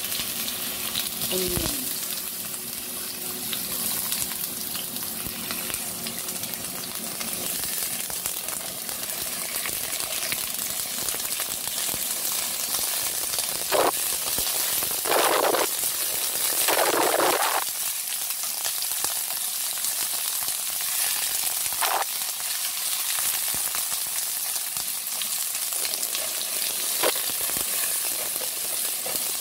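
Sliced onion sizzling in hot oil in a nonstick wok, stirred with a spatula, with a few short louder scrapes around the middle.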